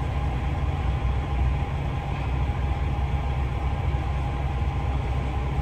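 DAF truck's diesel engine running steadily, a low rumble heard from inside the cab.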